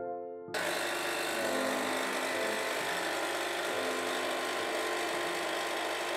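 Capsule espresso machine's pump running with a steady buzzing hum as it brews coffee into a cup, starting abruptly about half a second in.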